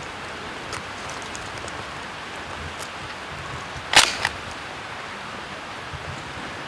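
A single loud, sharp report about four seconds in, with a weaker echo a quarter-second later: a shotgun shot at a wild turkey.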